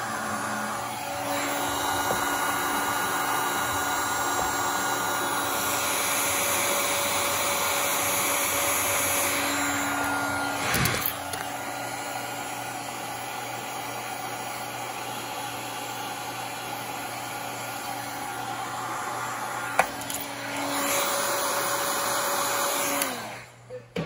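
Electric heat gun blowing hot air steadily to shrink heat-shrink tubing and a shrinkable boot onto a wire harness. Its blower noise grows louder and softer as it is moved over the work, then cuts off near the end.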